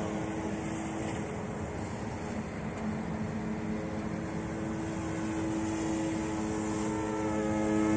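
Eachine E180 RC helicopter in flight: the steady whine of its direct-drive brushless motors and the buzz of its rotors, holding one pitch and growing louder near the end.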